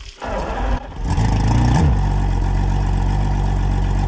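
Evinrude E-TEC 200 H.O. two-stroke outboard started on its flushing water: starter cranking, then about a second in it catches with a short rev that rises and falls, and settles into a steady idle.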